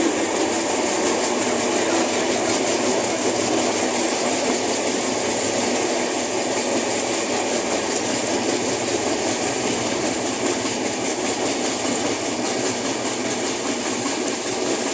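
Passenger train running along the line, heard from inside the carriage by an open door: steady running noise of the wheels on the rails.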